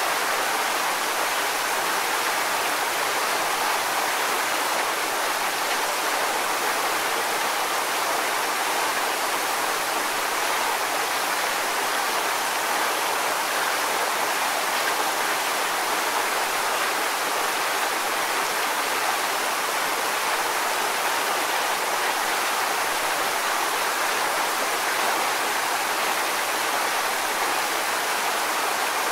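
Waterfall: water pouring and splashing in a steady, unbroken rush, more hiss than rumble.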